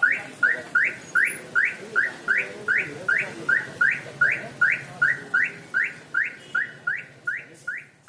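Newly installed aftermarket RD car alarm siren sounding, a test of the finished installation: a rapid, even series of short rising chirps, about two and a half a second.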